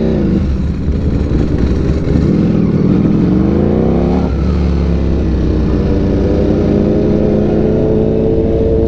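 Sport bike engine heard from the rider's seat, climbing in pitch as it accelerates, dropping sharply about four seconds in as it shifts up, then pulling on with a slowly rising note, over steady wind and road noise.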